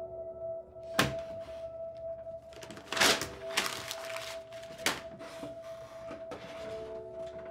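A quiet ambient music score holding one steady drone note, with softer tones beneath it. Three sharp knocks cut through it, about a second in, about three seconds in (the loudest, followed by a brief rustle) and near five seconds.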